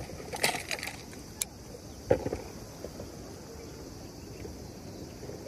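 Handling of an inflatable life jacket's strap and plastic buckle: a cluster of rustles and clicks, a sharp click about a second and a half in, and a knock a little after two seconds. A steady high hiss runs underneath.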